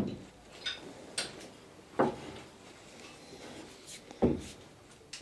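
Wooden knocks and clunks from hand work on a wooden dinghy's centreplate case and seat: one loud thump at the very start, then separate sharper knocks about two seconds and about four seconds in, with a few light clicks between.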